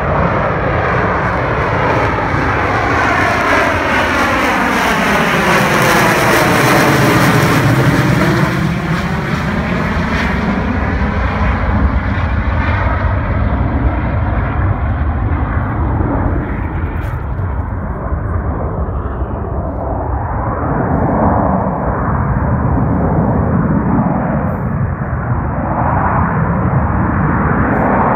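Harrier jump jet's Pegasus vectored-thrust turbofan running loud and steady as the jet hovers on its approach to a vertical landing. The sharp hiss in the noise fades about ten seconds in, leaving a lower, rougher rumble.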